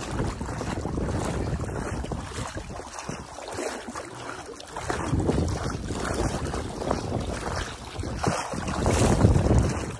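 Wind buffeting the microphone, gusting hardest near the end, over water sloshing and splashing around the legs of someone wading through a shallow river.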